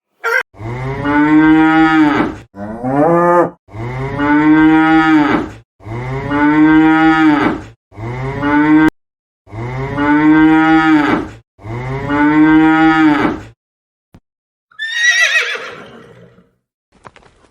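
Cow mooing: about seven long moos in quick succession, each one to two seconds long and arching up then down in pitch. A brief, higher call follows near the end.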